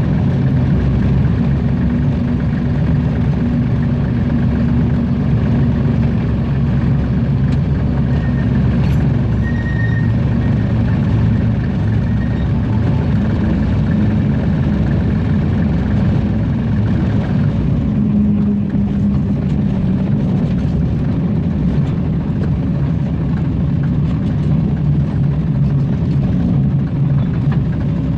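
Hunslet narrow-gauge diesel locomotive's engine running steadily, heard from the cab as the loco rolls slowly along the track.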